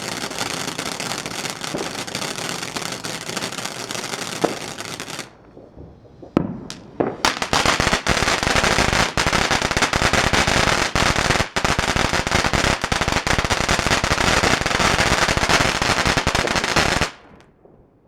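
World Class Fireworks Mesmerize fountain crackling densely. It dies down briefly about five seconds in, comes back louder with a few sharp pops, then crackles steadily until it cuts off suddenly near the end as the fountain burns out.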